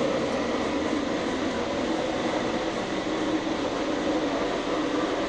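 Industrial burn-off furnace with a 10-million-BTU afterburner running, a steady, unbroken noise of burner and blowers with a faint hum in it.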